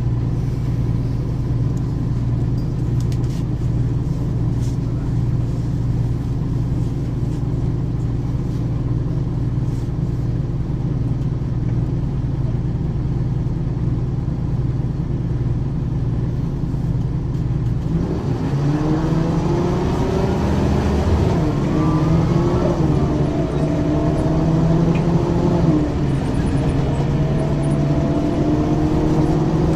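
Ikarus 435 articulated bus with a ZF automatic gearbox: the diesel engine idles steadily, then about two-thirds of the way through it pulls away, the engine note rising and dropping back twice at gear changes as the bus accelerates.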